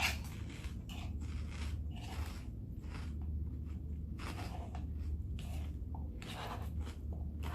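A person chewing a mouthful of Caesar salad close to the microphone, with short crunchy bites at irregular intervals. A steady low hum runs underneath.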